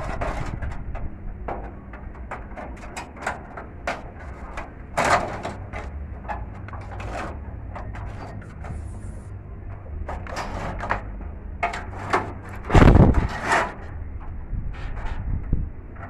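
Irregular clicks and knocks, with a low rumble of wind or handling on the microphone; one louder thump about thirteen seconds in.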